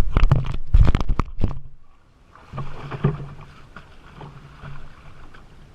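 Boat on the water: a quick run of loud knocks and thumps in the first second and a half, then a steady low hum with light knocks.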